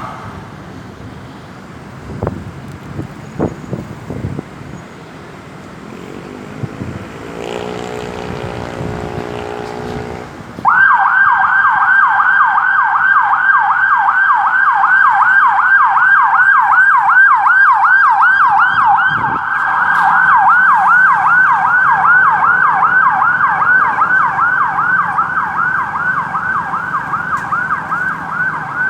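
Road traffic noise, then about eleven seconds in an ambulance siren switches on in a fast yelp: quick repeated up-and-down pitch sweeps, about four a second, loud and continuous.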